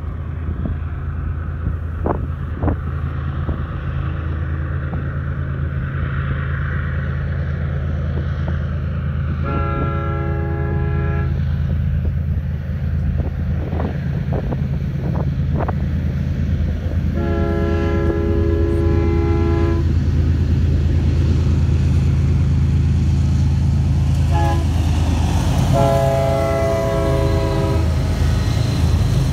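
Freight train led by eight BNSF diesel-electric locomotives approaching, their engines a steady low drone that grows louder as they near. The lead locomotive's multi-chime air horn sounds four times: two long blasts, a short one and a long one, the pattern used for a grade crossing.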